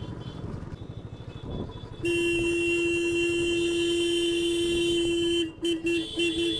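A vehicle horn sounds over motorcycle riding noise: after about two seconds it blares in one long held note for about three and a half seconds, then breaks into a quick run of short beeps, a few a second.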